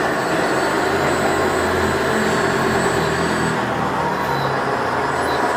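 Radio-controlled construction models running: a steady mechanical whirr of small electric motors and gearing.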